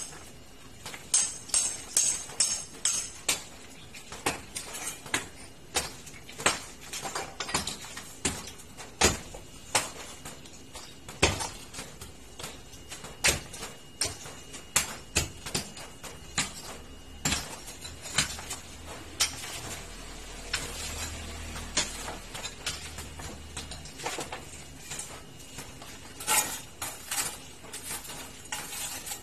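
Hand hammer striking metal on concrete as the slab at the foot of a gate is broken up for a drain: sharp metallic clinks at an irregular pace of about one or two blows a second, sparser in the second half and quicker again near the end.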